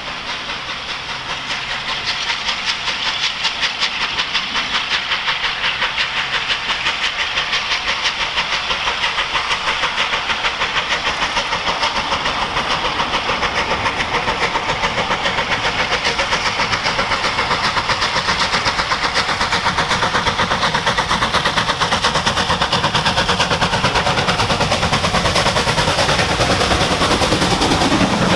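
Unrebuilt Bulleid Battle of Britain class Pacific No. 34081's three-cylinder exhaust beating rapidly and evenly as the engine works a freight train, growing steadily louder as it approaches. Near the end the heavier rumble of the engine and its wheels passing close comes in.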